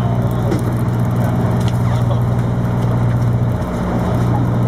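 A sportfishing boat's engine running steadily: a low, even drone with a slight dip in level about three and a half seconds in.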